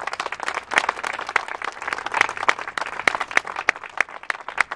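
A small group applauding: many separate hand claps at an uneven, quick pace.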